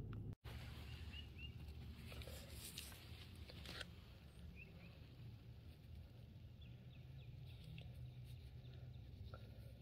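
Quiet outdoor ambience under a steady low rumble, with a few faint short high chirps and some soft rustles or clicks of handling about three seconds in.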